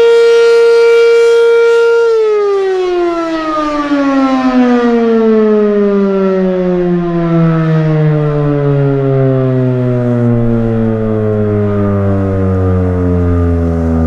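B&N Mobil Directo BN52 tornado siren sounding a steady tone, then winding down about two seconds in, its pitch falling smoothly and steadily into a low moan as the rotor slows.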